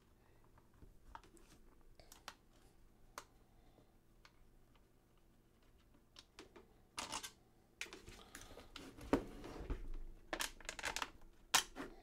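Hand disassembly of a Worker Seagull foam-dart blaster: a few light clicks at first, then from about seven seconds in louder knocks, clunks and scraping of the plastic body parts as the front end is worked loose from the rear.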